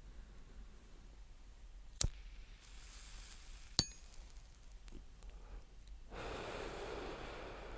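A cigarette being lit and smoked: a sharp click, a short hiss, then a metallic clink with a brief ring. This is followed by a long breathy pull of smoke lasting about two seconds.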